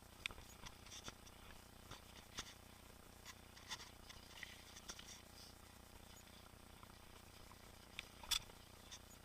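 Faint, irregular clicks and light rattles from a mountain bike moving over a trail, over a low hiss, with one sharper click a little over eight seconds in.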